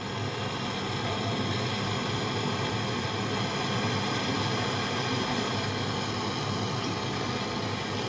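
Steady machine noise with a constant hum running without a break.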